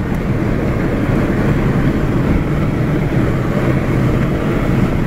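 Engine and tyre noise of a remapped Mini Cooper S, heard from inside the cabin while the car is driven along at speed; it holds at a steady level.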